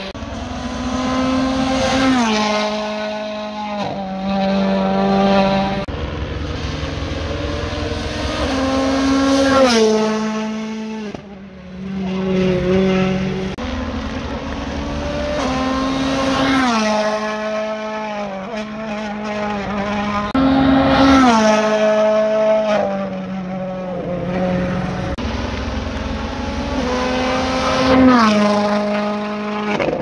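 World Rally Car turbocharged four-cylinder engines revving hard on a tarmac stage. The pitch climbs and drops sharply again and again as the cars change gear.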